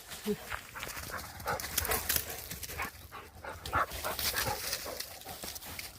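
Dogs making small sounds close by, among scattered short rustles and knocks.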